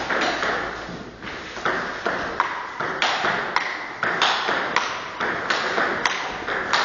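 Table tennis rally: a celluloid ball cracking off the rackets, one of them faced with Yasaka Rakza 7 rubber on a Ma Lin Carbon blade, and bouncing on the table. Sharp clicks come at about two a second, each trailing a hall echo.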